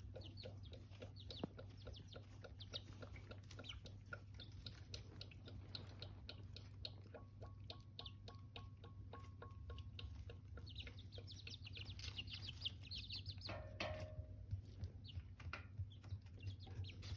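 Month-old chicks peeping and chirping in a brooder, with frequent short taps and a steady low hum underneath. About three quarters of the way through, one louder call slides down in pitch.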